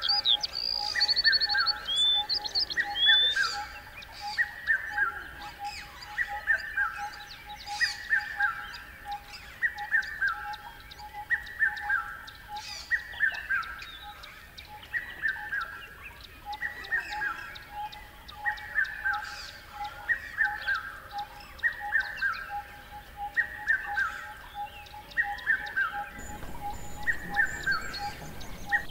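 Birds calling in a nature ambience: one short downward-sweeping call repeated at even intervals about every second and a half, over a steady fast pulsing call. A few higher chirps come in the first few seconds.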